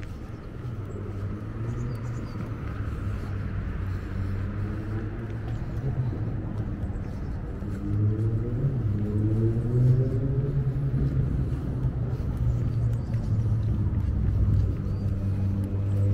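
Road traffic: a motor vehicle's engine running close by over a steady low rumble, its pitch rising about halfway through as it speeds up, and getting louder towards the end.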